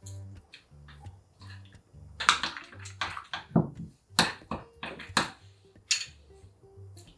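A metal spoon stirring a thick seasoning paste in a small ceramic bowl, with a run of sharp clinks and scrapes against the bowl from about two seconds in, over quiet background music.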